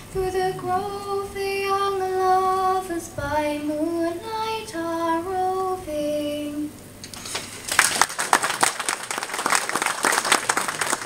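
A girl singing solo and unaccompanied, holding long notes as the melody steps down to a final low note about two-thirds of the way through. About a second later an audience breaks into applause, which carries on to the end.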